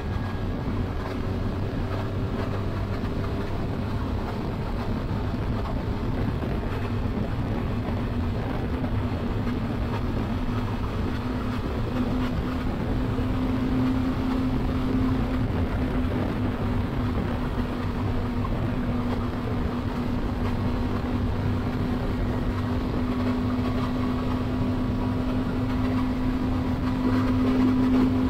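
Triumph Tiger 1200 Explorer's three-cylinder engine running at a steady cruise under wind and road noise, its note creeping slowly higher as the bike gathers a little speed.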